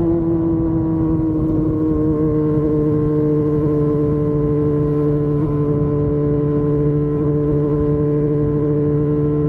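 Yamaha FZ6 Fazer 600's inline-four engine running at steady revs on the move, its pitch easing down slightly in the first second and then holding level, with rushing wind underneath.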